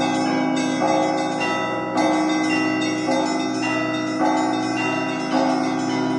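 Russian Orthodox church bells rung by hand: several bells of different pitches struck in an overlapping pattern, a new stroke about every half second over a continuous wash of ringing, with a deep bell sounding under the higher ones.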